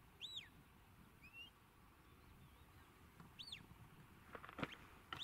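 Faint shepherd's whistle commands to a working sheepdog: a few short, arching whistle notes, each rising and then dropping sharply, with a busier run of short sounds near the end.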